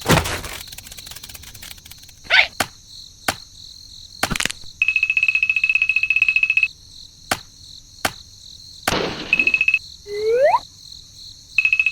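A steady high insect-like chirring, possibly crickets, runs throughout. Over it come several sharp clicks, a rapidly pulsing high electronic beep for about two seconds from about five seconds in and again briefly later, and a quick rising whistle-like glide near the end.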